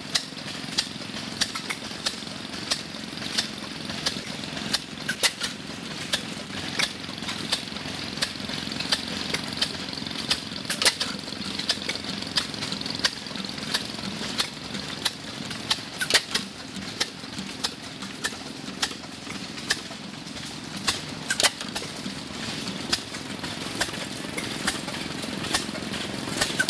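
4 hp gearless McVicker hit-and-miss gas engine running on its piston-trip governor: sharp exhaust bangs at uneven gaps, about a second or two apart, with the flywheels coasting between firings as the governor skips strokes to hold speed.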